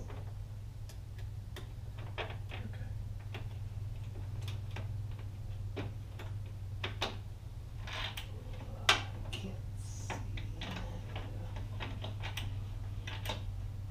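Scattered small clicks and taps of a thin metal pick and fingers working against the plastic front-grille trim of a pickup truck while a wire is fished through, with one sharper click about nine seconds in. A steady low hum runs underneath.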